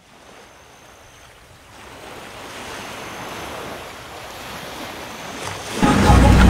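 A steady rushing noise swells up out of silence over the first couple of seconds. Near the end it jumps suddenly to much louder sound, with steady tones over a low rumble.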